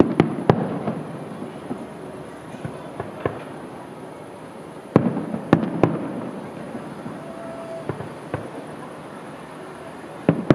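Aerial firework shells bursting, each sharp bang trailing into a rolling echo. Clusters of reports come at the start, about halfway through and near the end, with fainter cracks in between.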